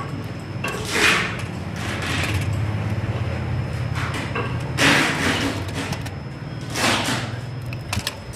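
Handling noise from work on switch wiring: four short scraping rustles and a few sharp clicks near the end, over a steady low hum.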